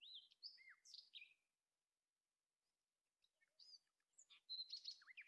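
Faint bird song: quick chirps and whistled notes sliding up and down, in two phrases, one at the start and a longer one from about three seconds in.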